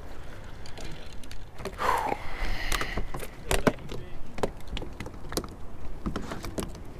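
Irregular knocks and clatters, most of them in the second half, from a freshly landed Spanish mackerel and fishing tackle on wooden pier boards. A short sliding squeak comes about two seconds in.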